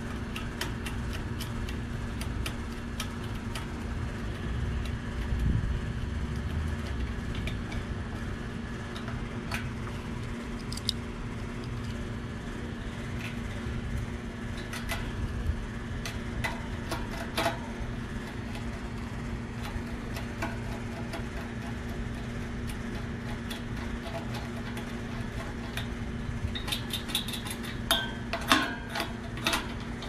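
Air-conditioning equipment running with a steady hum and low rumble, under scattered light metallic clicks and clinks that bunch together near the end.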